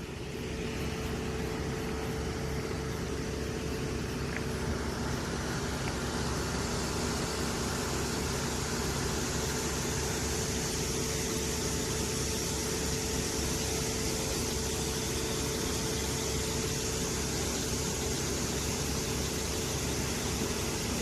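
A machine running steadily: a constant low hum with an even hiss over it, unchanging throughout.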